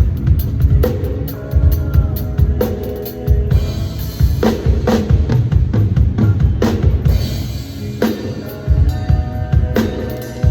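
Drum kit played in a continuous groove: bass drum thumps and snare hits, with several stretches of hissing high wash over the beat.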